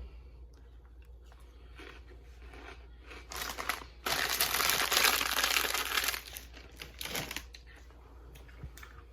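A potato chip bag crinkling as chips are taken out of it: a couple of short rustles, then about two seconds of loud, dense crinkling, then another brief rustle.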